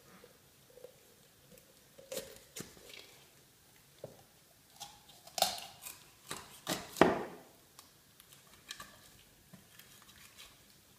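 Large kitchen knife cutting through a whole raw chicken on a plastic cutting board: irregular slicing, snipping and knocking sounds, with a cluster of louder cuts about halfway through.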